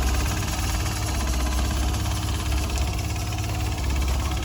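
Rover Metro (Rover 111) engine idling roughly with an uneven, lumpy low beat. The owner says it struggles to tick over and feels like it is misfiring and dropping a cylinder.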